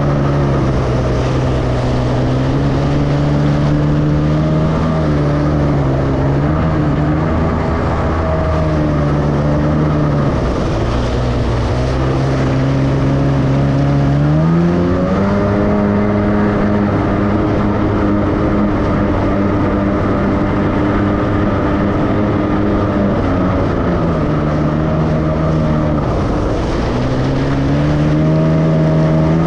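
Jet ski engine running under throttle, its pitch rising and falling as the throttle changes: it dips around ten seconds in, climbs sharply around fifteen seconds, drops away around twenty-five seconds and climbs again near the end.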